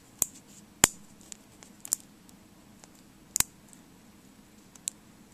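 Zen Magnets, small neodymium sphere magnets, clicking as they snap together while a layer is laid onto a magnet-ball shape: a few sharp, separate clicks, two of them in quick pairs, loudest about a second in and again past three seconds.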